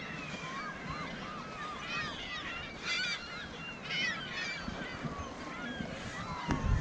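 A large flock of gulls calling all at once, many short overlapping cries. Near the end comes a single low thump.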